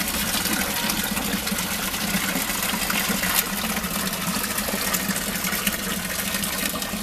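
Steady rush of running water in a koi holding tank, with a steady low hum under it.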